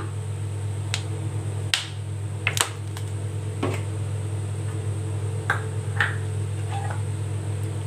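Sesame oil heating in a clay pot: a few faint, scattered ticks and pops, one every second or so, over a steady low hum.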